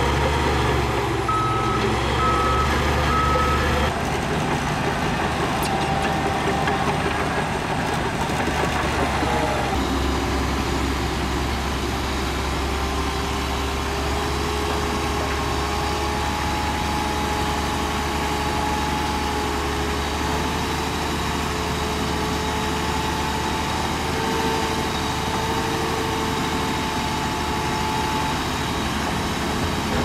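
Heavy diesel earthmoving machinery running steadily, with a reversing alarm beeping a few times near the start. A steady whine comes in about ten seconds in and holds.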